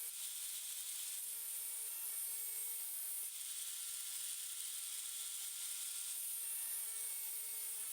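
Angle grinder running with a steel chisel held against its spinning disc, grinding the bevel: a steady motor whine under a hissing grind, which shifts abruptly a few times.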